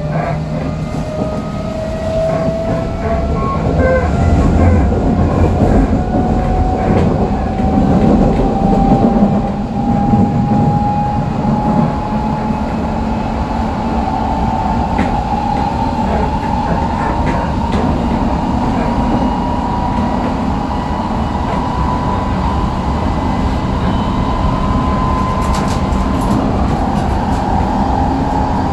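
Mitsubishi IGBT-VVVF inverter and 6-pole induction traction motors of an Odakyu 3000-series motor car whining as the train accelerates, one tone rising slowly in pitch with the speed, over the rumble and clickety-clack of the wheels on the rails, heard from inside the car.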